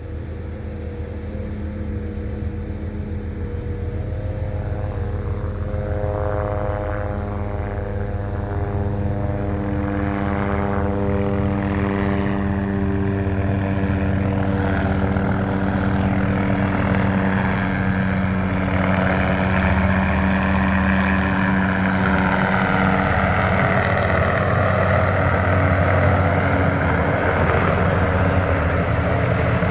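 MD 530F light helicopter approaching and landing, its rotors making a steady buzz that grows louder. The Rolls-Royce 250 turboshaft's higher whine comes up over the rotor drone in the second half.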